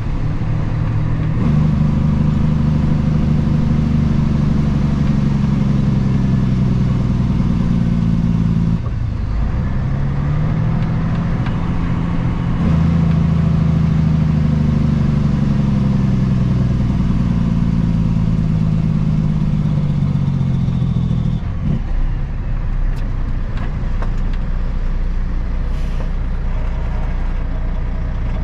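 Kenworth W900 dump truck's diesel engine pulling under load, heard from inside the cab. The engine note breaks off briefly at the start and again about nine seconds in, the pauses of gear shifts on its 13-speed manual transmission, then climbs back up. Near the end it drops to a lower, quieter rumble as the truck slows toward a junction.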